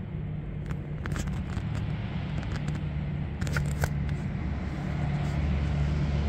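Low, steady motor-vehicle engine rumble that grows slowly louder, with a few faint clicks.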